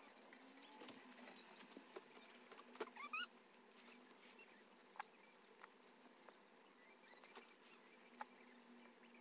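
Near silence with faint hand-sewing sounds: thread drawn through cotton fabric with a brief rising squeak about three seconds in, and a few small clicks of needle and fingers handling the purse.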